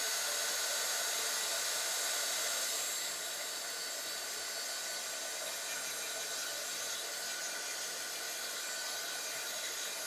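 Handheld electric blower drying wet acrylic paint on a journal page, running steadily with a rushing hiss and a faint whine, slightly quieter from about three seconds in.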